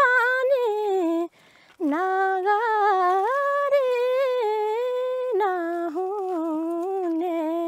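A woman's high voice singing a slow, wordless folk melody, in the manner of humming, in long held notes with small wavering bends. It breaks off once briefly, about a second and a half in, for a breath.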